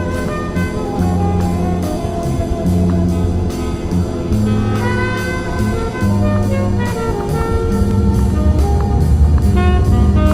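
Background music: upbeat jazz with brass (horns) over a bass line and a steady beat.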